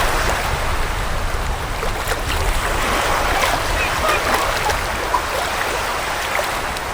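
Black Sea surf washing on the shore: a steady rush of water with small crackles running through it.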